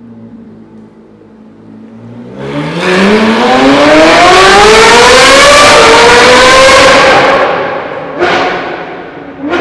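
Supercar engine idling low, then accelerating hard, its note climbing steadily in pitch and loud for several seconds before fading away. A sudden sharp burst follows near the end.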